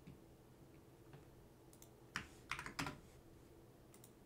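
Computer keyboard keystrokes: a few faint clicks, then a quick burst of several sharper key taps about two to three seconds in, over a faint steady hum.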